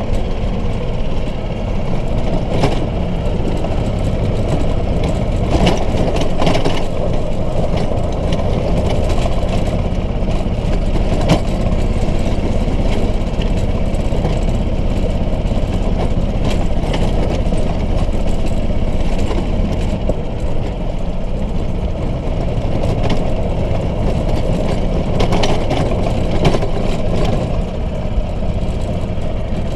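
Engine of a small open cart running steadily as it drives over rough grass and gravel, with short knocks and rattles from the body and windshield over bumps.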